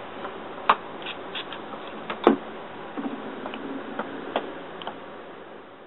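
Steady hiss with a few sharp clicks and light taps from makeup products and brushes being handled, fading out near the end.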